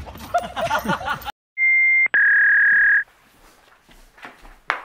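Two loud, steady electronic beeps: a short higher one, then a longer, slightly lower one straight after. Before them, shouting voices cut off abruptly into silence. A single sharp click comes near the end.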